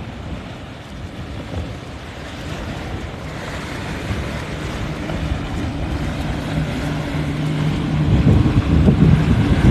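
Motorboat engine running with a steady hum that grows louder as the boat approaches, strongest near the end, over wind buffeting the microphone.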